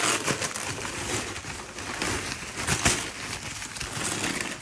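Paper wrapping rustling and crinkling as it is torn open and pulled off a boxed appliance, with a sharper crackle about three seconds in.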